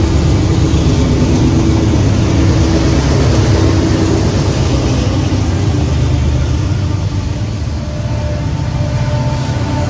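Diesel locomotive passing close by: a loud, steady, low engine rumble.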